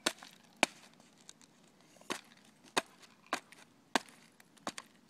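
Thin ice on a frozen puddle cracking under a child's sneakers as he stamps on it: a string of about seven sharp, separate cracks at uneven intervals.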